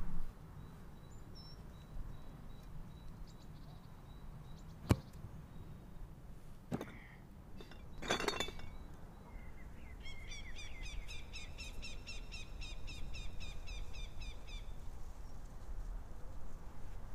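Outdoor field ambience with a steady low rumble. A single sharp knock about five seconds in, a short harsh burst around eight seconds, then a small bird trilling fast repeated chirps for about five seconds.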